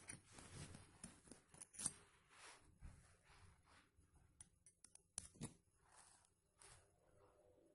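Faint, scattered clicks and short scrapes of a small screwdriver kit being handled, with a few sharper clicks about two and five seconds in.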